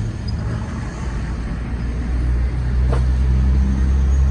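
Steady low mechanical drone, like an idling engine or running machinery, growing a little louder after about two seconds, with a single sharp knock about three seconds in.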